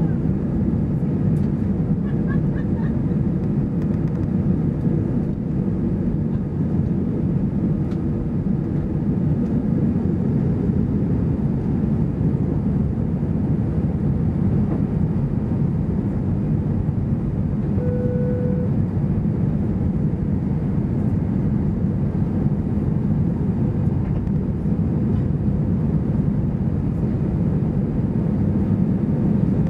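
Airbus A320-214's CFM56-5B4 jet engines at takeoff thrust, heard inside the cabin over the wing: a steady low rumble with rushing air as the jet leaves the runway and climbs. A brief single tone sounds about two-thirds of the way in.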